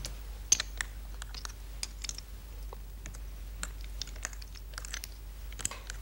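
Stones being placed on and taken off a large wall-mounted Go demonstration board, in a quick irregular run of sharp clicks and clacks as moves are replayed.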